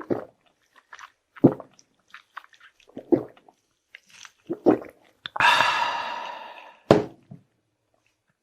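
Close-miked eating sounds: chewing, with a soft thud about every second and a half, and a longer sound of about a second and a half that fades out about five seconds in.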